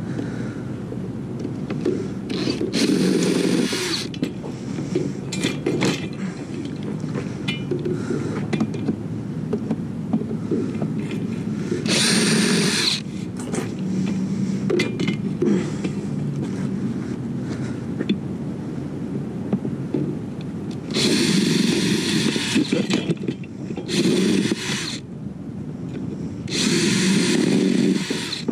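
A handheld power tool run in about five short bursts of a second or so, with clattering and handling of metal and plastic parts between them, as a metal part is taken off a mostly plastic item to separate it for scrap.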